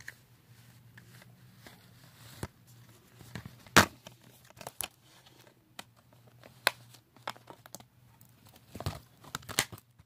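Handling noise from a phone being carried and a DVD case being picked up: scattered sharp clicks and knocks with rustling, the loudest knock about four seconds in, over a faint steady low hum.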